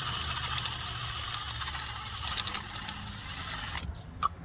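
A steady low engine rumble, like a vehicle idling, under a hissing, scraping noise with scattered clicks and rattles. The hiss cuts off suddenly near the end.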